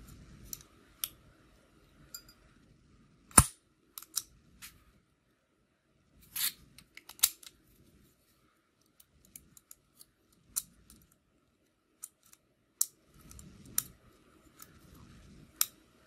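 Master Lock 178D brass code-wheel padlock being worked with a thin pick: irregular small clicks and ticks as the number wheels are turned and probed. One much louder, sharp click comes about three and a half seconds in.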